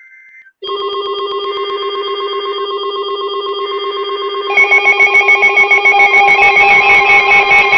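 The end of a warbling weather-radio data burst (SAME alert header), then a loud electronic alert alarm. The alarm is a stack of steady tones pulsing rapidly like a ringing phone, and it steps up louder about halfway through, announcing a new warning.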